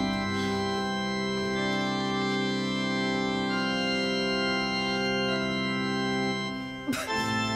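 Organ music playing slow, sustained chords. The held chord changes a couple of times and briefly drops away near the end.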